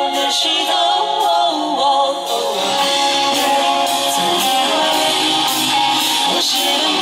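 Live rock band playing: a woman sings into a microphone over electric guitar, with cymbals struck at a steady beat.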